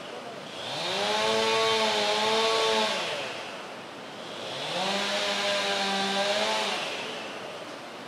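Two-stroke gasoline chainsaw cutting wood: the engine revs up to full speed twice, each time held for about two seconds before dropping back down.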